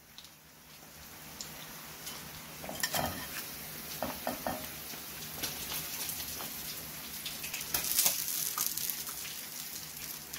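Bangamary fish shallow-frying in hot oil in a skillet: a steady sizzle with scattered crackles and pops, growing louder over the first couple of seconds, with sharp clicks of metal tongs as the fried pieces are lifted out.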